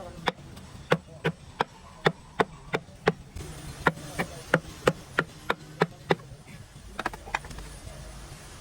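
Repeated hand-hammer blows, about three a second: a run of eight, a short pause, another eight, then two more near the end.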